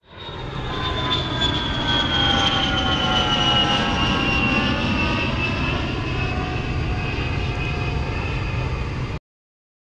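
Jet aircraft engines running, a steady rumble under a high whine that slides slowly down in pitch. It fades in over the first second and cuts off abruptly about nine seconds in.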